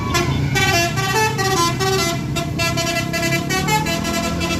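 A bus's basuri-type telolet horn playing a quick tune of short notes that step up and down in pitch, over the low rumble of the bus engine.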